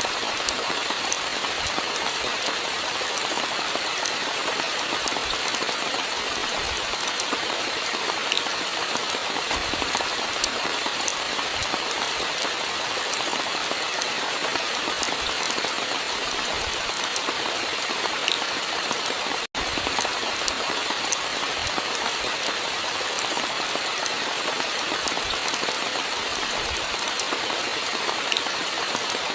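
Steady rainfall: a continuous, even hiss of rain with scattered sharp drop ticks. It cuts out for an instant about two-thirds of the way through.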